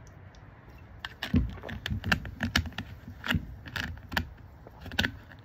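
Irregular clicks and crackles from a plastic drink bottle being handled and its screw cap twisted, starting about a second in and going on for several seconds.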